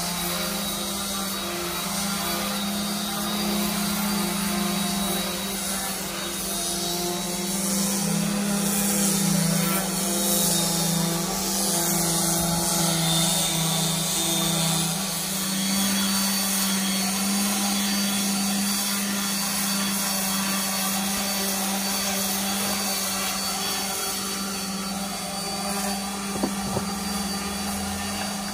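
Electric 5-inch random orbital sander with an 80-grit disc running steadily as it sands a concrete countertop, smoothing off the fibre hairs from the fibre-reinforced concrete. A couple of small clicks near the end.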